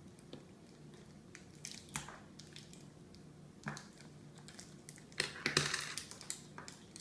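Plastic and foil wrapping crinkling as it is cut with scissors and torn open by hand, with scattered small clicks and snips; the loudest burst of crinkling comes about five seconds in.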